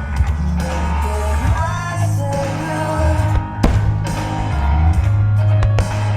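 Pop song with a singer and a steady bass line, played loud, with one sharp bang a little over halfway through.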